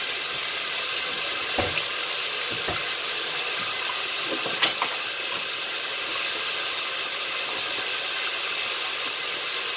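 Kitchen faucet running steadily into a sink as the sink is rinsed out, with a few light knocks in the first half.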